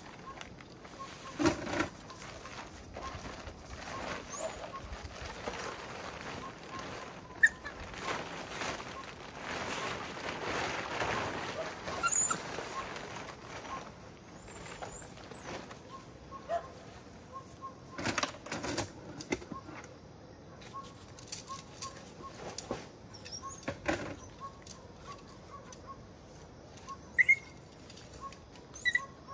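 A tent being pitched: its fabric rustles and flaps in irregular bouts, with sharp clicks and knocks now and then.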